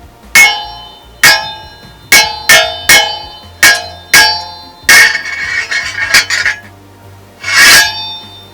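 Foley fight sound effects made by striking props: a run of sharp hits, each with a short ring, about seven in the first four seconds, then three longer, noisier crashes.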